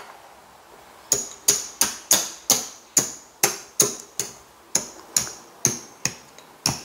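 Casino chips clicking one at a time onto a stack, about three a second, starting about a second in, as the chips are counted.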